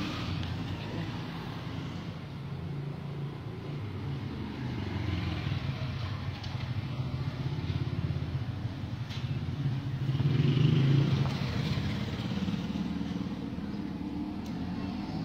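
A motor vehicle's engine running with a low rumble, swelling louder about ten seconds in and then easing off.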